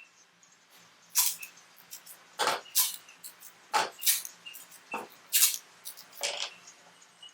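Masking tape being pulled and torn in a series of short, rasping rips, about eight spread over several seconds, as strips are laid over glass panels to hold them for soldering.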